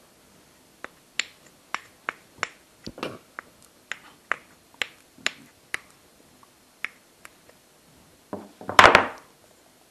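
Two small bloodwood blocks clicking and knocking against each other as they are handled, in about a dozen sharp, separate clicks. About eight and a half seconds in, a louder short clatter as they are set down on the wooden workbench.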